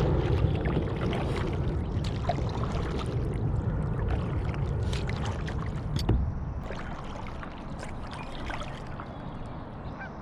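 Kayak being paddled: water splashing and dripping around the paddle over a low, steady rumble, with a louder splash about six seconds in, after which it grows quieter.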